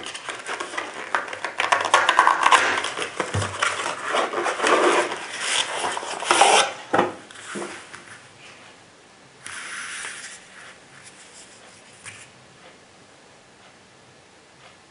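Handling noise as a cardboard box of rifle cartridges is opened and its cartridge tray slid out: rustling, scraping and light clicks. About ten seconds in there is a second-long scrape as a cartridge is drawn from the tray, followed by a few faint clicks.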